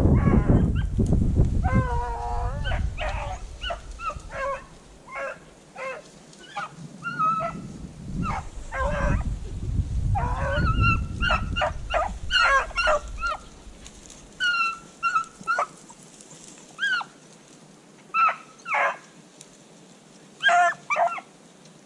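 Rabbit hounds barking and yipping in many short, high cries, some bending in pitch. Wind rumbles on the microphone near the start and again in the middle.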